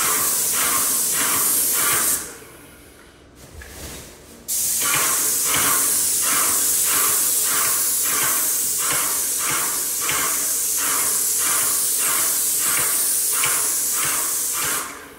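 Graco airless paint sprayer with an FFLP 514 low-pressure fine-finish tip, spraying paint onto a door: a steady high hiss of atomized paint. There is a short pass, a stop at about two seconds, then a longer pass from about four and a half seconds until near the end, with a quick regular pulsing of about three beats a second under the hiss.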